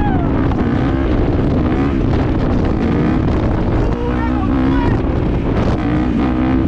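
Yamaha dirt bike engine running steadily while the bike is held up in a wheelie, its pitch wavering slightly with the throttle, with wind rushing over the microphone.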